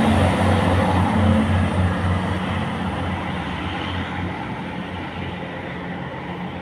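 Northern Ireland Railways CAF diesel multiple unit pulling away along the platform. Its diesel engine's low pulsing note and the wheel-on-rail noise fade steadily as it moves off, and the engine note drops away about four seconds in.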